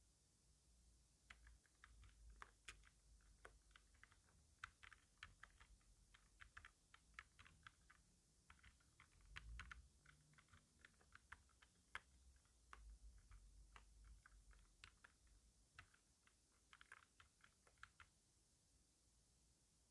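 Faint typing on a computer keyboard: an irregular run of quick keystroke clicks that thins out near the end.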